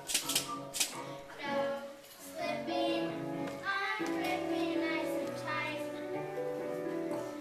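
Children singing a song with musical accompaniment, holding long notes. There are a few sharp percussive taps in the first second.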